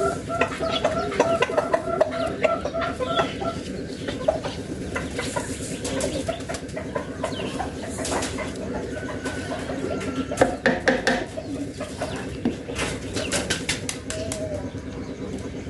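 Sharp metal clicks and knocks from a diesel fuel injection pump and hand tools being handled during disassembly, thickest about two thirds of the way through. A chicken clucks repeatedly in the background during the first few seconds.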